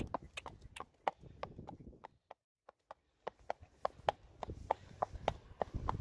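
Friesian horse's hooves clip-clopping on an asphalt path at a walk, about three hoofbeats a second. The beats drop out for about a second partway through.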